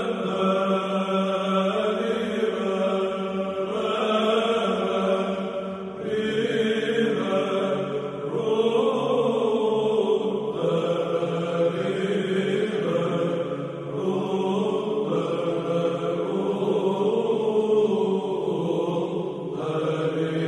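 Church chant: sustained sung lines shifting every couple of seconds over a steady low held note.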